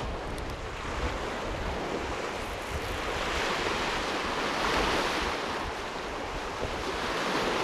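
Small waves washing and breaking on a rocky shore, swelling to their loudest about halfway through, with wind gusting on the microphone.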